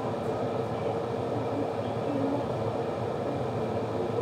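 Glass electric kettle heating water, giving a steady rumbling hiss. Small bubbles are forming on the bottom: the water is nearing the boil but not yet at a rolling boil.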